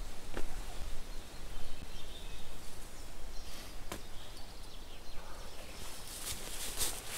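Rustling and crackling of a groundcloth being spread and smoothed by hand over dry leaf litter, with a couple of sharp ticks and the rustling growing louder near the end. Faint bird chirps sit behind it.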